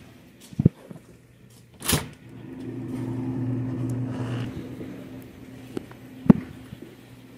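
A couple of sharp knocks and a clack, with a steady low electrical hum from a running appliance that starts about two seconds in, swells, then settles to a faint level.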